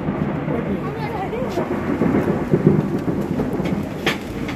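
Loud steady rumbling background noise, with two sharp clicks, about a second and a half in and near the end.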